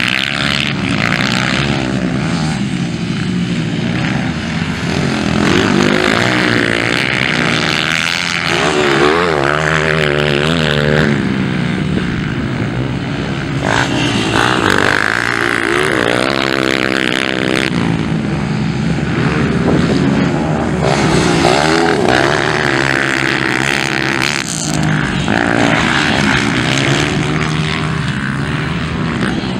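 Several motocross dirt bikes running hard around the track, their engines revving up and down as they accelerate and back off, with the pitches of different bikes overlapping and rising and falling throughout.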